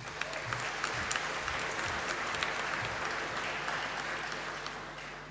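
Audience applauding a graduate crossing the stage, swelling just after the start and tapering off near the end.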